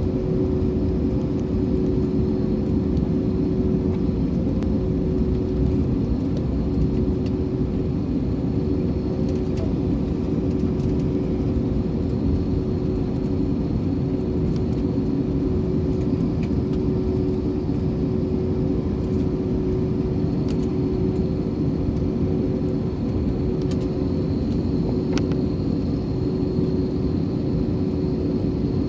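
Steady drone inside an airliner cabin on the ground before takeoff: a low, even rumble with a constant hum tone running through it.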